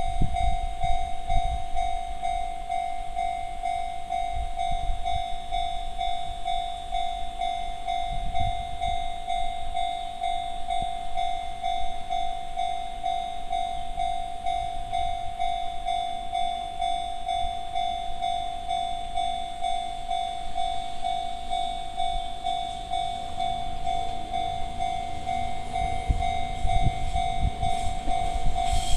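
Electronic warning bell of a Japanese railway level crossing, in the Chichibu-type tone, ringing in a steady repeating pattern: one pitched ding with faint higher overtones. A low rumble builds near the end.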